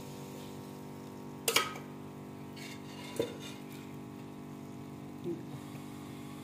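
Sharp metallic knocks of a spoon against a steel cooking pot: one loud knock about a second and a half in, then two fainter ones further on, over a steady low hum.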